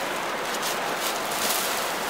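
Dry brushwood twigs rustling and crackling as an armful is gathered up by hand from the ground.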